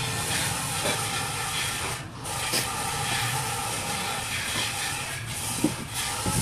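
Steady hiss with a low hum underneath, dipping briefly about two seconds in, and a few faint clicks near the end as wires and parts are handled.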